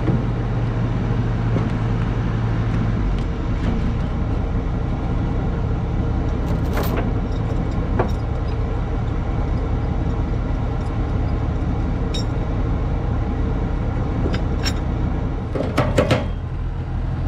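A Cat 242D skid steer's engine runs steadily, its drone shifting about three seconds in. A few sharp knocks come through over it.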